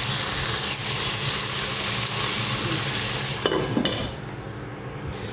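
Chicken pieces sizzling as they sauté in hot oil with garlic, onion and ginger in a pot. A little over three seconds in come a couple of sharp clinks, and after them the sizzling is quieter and duller.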